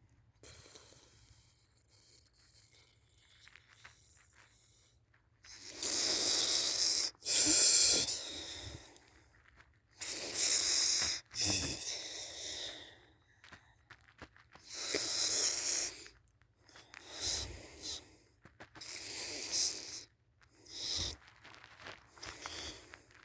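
A person snoring loudly in deep sleep. After a quiet first few seconds, harsh, hissy snores come every two to three seconds, the loudest about seven seconds in.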